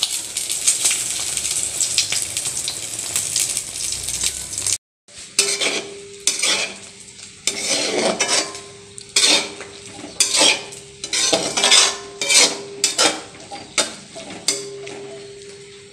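An egg omelette sizzling in a frying pan with a steady crackling hiss. After a sudden cut, a metal spatula scrapes and stirs fried noodles with vegetables in a steel pan, in repeated irregular strokes about two a second over a steady low hum. The strokes stop near the end.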